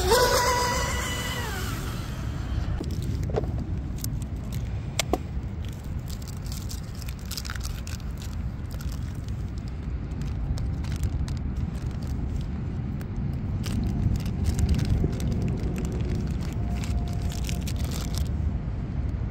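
Twin high-RPM brushless motors of an RC mono speed boat whining past at speed, the pitch falling as it goes by and fading within about two seconds. After that, a low wind rumble on the microphone with scattered crinkles and clicks of a plastic bag being handled.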